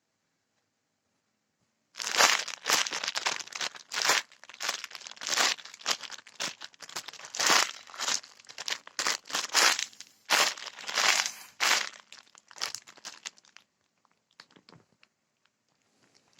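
Plastic wrapping crinkling and crackling in quick, loud, irregular bursts as it is handled. It starts about two seconds in and thins to a few faint crinkles after about thirteen seconds.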